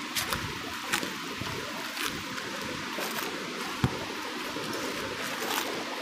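River water flowing steadily, heard from close by on the bank. A few short clicks and one sharp thump about four seconds in cut through it.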